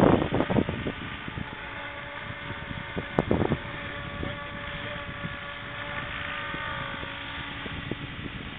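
Electric scale RC helicopter hovering: a steady whine from its electric motor and rotors. Wind buffets the microphone, with short loud gusts at the start and about three seconds in.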